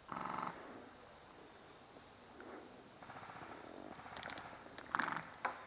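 Airsoft rifle firing full-auto bursts, a rapid buzzing rattle: a half-second burst at the start and two short bursts near the end, with a few faint clicks in between.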